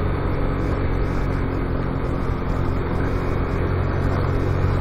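Motorcycle engine running at a steady cruise, with wind and road noise from riding.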